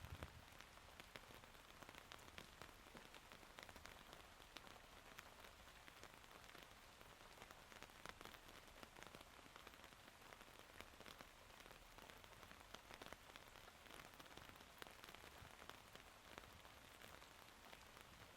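Rain falling steadily: a faint, even hiss with many individual drops ticking.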